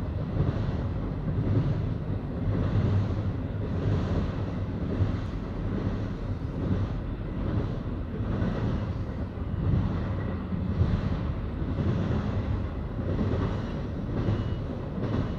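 Double-stack container freight train rolling past: a steady low rumble with a regular rhythmic clatter of the cars going by.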